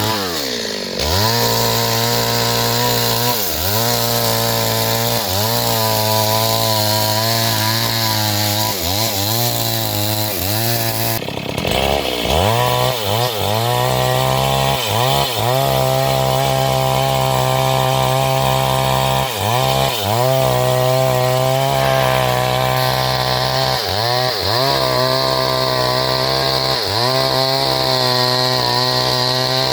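Chainsaw running at high revs while cutting into a large tree trunk. The engine pitch dips and recovers about every two seconds as the chain is pushed into the wood and eases off.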